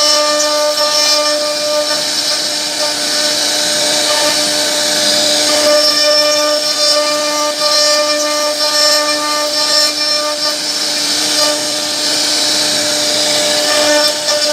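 CNC router spindle running with a steady whine while its bit carves into a wooden board, with a hiss of cutting that swells and eases.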